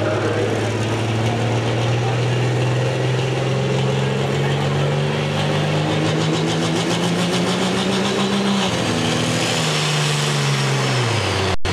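Heavy super stock pulling tractor's turbocharged engine revving, its pitch climbing steadily for about eight seconds with a high whine joining in, then the revs dropping away near the end.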